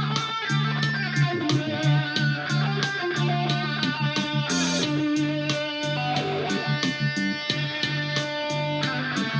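Guitar playing a melody with wavering, bent notes over steady low bass notes and an even beat of about four ticks a second.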